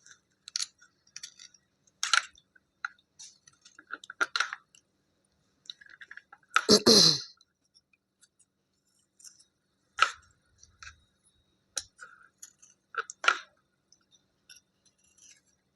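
Soaked slate-pencil pieces being scraped and handled: short, sharp, irregular clicks and scrapes as the softened layers come off. One longer, louder sound comes about seven seconds in.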